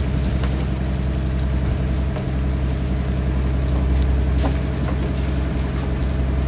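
An engine running steadily at constant speed: an even low hum with a few faint clicks over it.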